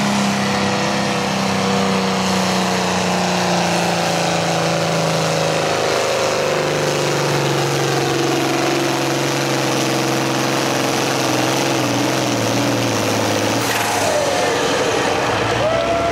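Turbocharged International Harvester farm tractor's diesel engine running under full load while pulling a weight-transfer sled. Its note falls steadily as the sled's weight builds and bogs it down, with a drop about six seconds in, and the engine dies away about fourteen seconds in as the pull ends.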